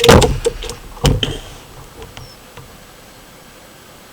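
Two loud mechanical clacks about a second apart as the magazine-fed air rifle is handled between shots, in keeping with working its action to load the next pellet.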